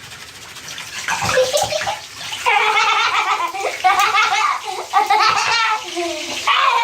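A young child laughing and giggling in a bath, in repeated high-pitched peals that start about two and a half seconds in, over bathwater sounds.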